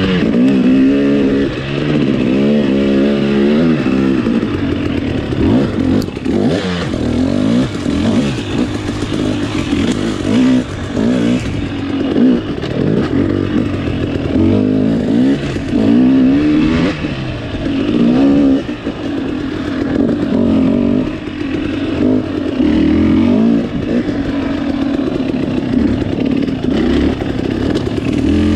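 Off-road dirt bike engine revving up and down over and over in short throttle bursts as the bike is ridden up a steep climb and over a log, with a few knocks and clatter from the bike.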